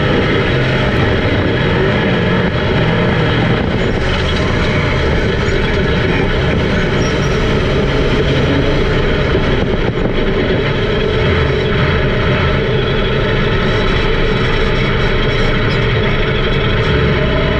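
Race car engines running at speed on a short oval track, a loud, steady drone throughout.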